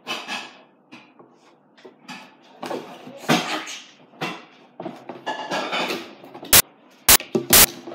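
Cardboard box being handled and opened by hand: irregular rustling and scraping of cardboard, then near the end three sharp, loud clicks or knocks about half a second apart.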